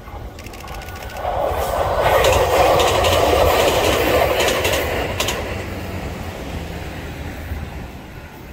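E653 series electric train passing close by, wheels clicking rhythmically over the rail joints. It swells from about a second in, is loudest between two and five seconds, then fades away as the train recedes.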